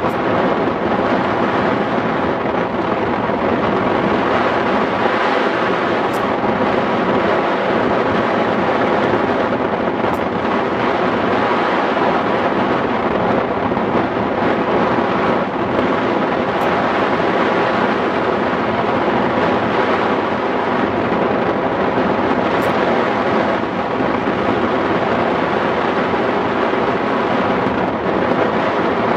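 Steady, loud rush of wind across the microphone of a camera mounted on a hang glider in flight.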